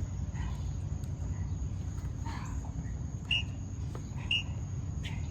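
Outdoor background with a steady thin high insect-like hum over a low rumble, and short sharp chirps about once a second in the latter half.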